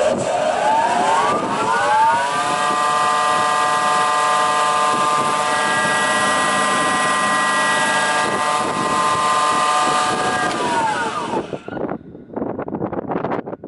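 KNOHOMA FSU 5 spindle moulder running up to speed, its spindle whine rising in pitch over about two seconds, then running steadily. About eleven seconds in, the whine dips in pitch and stops, followed by short uneven noises.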